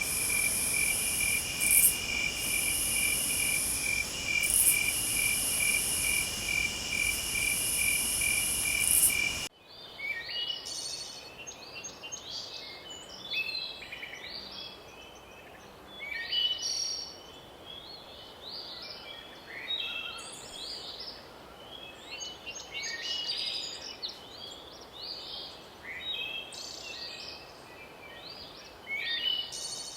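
A steady chorus of insects trilling in fast, even pulses, with a higher buzz above it. About a third of the way in it cuts off abruptly, and several forest birds sing short, varied chirps and phrases.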